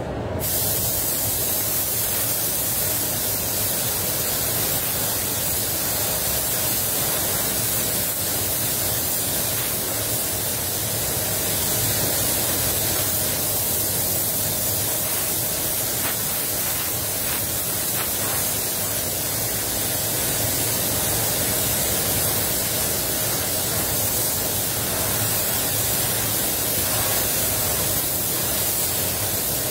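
Steady hiss of a paint spray gun's compressed air, spraying clear coat onto a car bumper at about 1.7 bar in full, unbroken passes.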